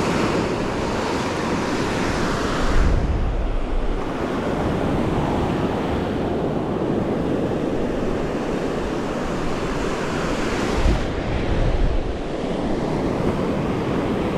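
Surf washing onto the beach, with steady wind rumbling across the microphone and stronger gusts about three seconds in and again near eleven seconds.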